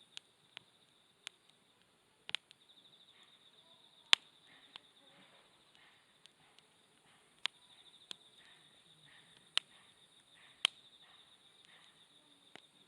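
Wood campfire crackling, with sharp, irregular pops, over a steady high-pitched trill of crickets or other night insects.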